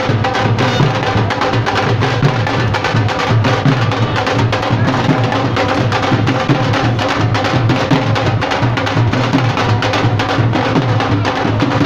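Loud, drum-heavy music with a fast, dense beat and a strong bass.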